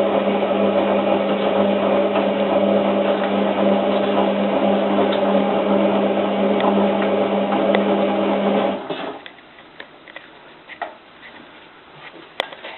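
Hotpoint 9534A washing machine's motor turning the drum during the wash, a steady mechanical hum with a clear pitch. About nine seconds in the drum stops for its pause between turns, leaving a much quieter stretch with a few faint clicks.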